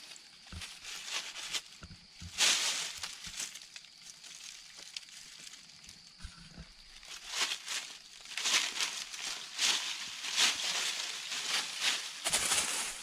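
Dry fallen leaves rustling and crunching underfoot in irregular bursts, a short burst a couple of seconds in and denser rustling through the second half.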